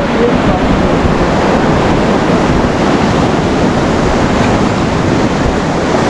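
Steady, loud rush of Ganges whitewater rapids churning around an inflatable raft.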